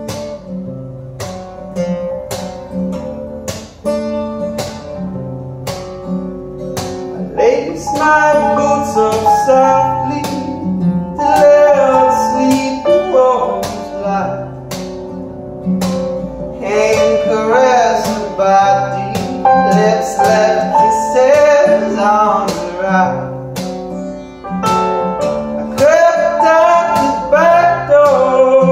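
Live acoustic guitar strummed with an electric keyboard (Korg) playing along. A wordless vocal melody comes in about eight seconds in and swells louder in the second half.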